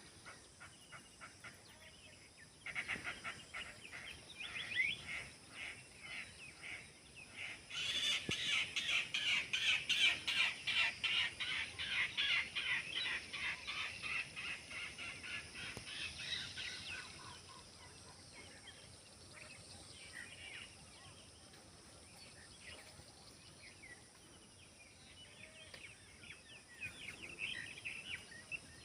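Many birds chirping together in a dense, rapid chatter that swells loudest about a third of the way in, fades back for a while, then picks up again near the end.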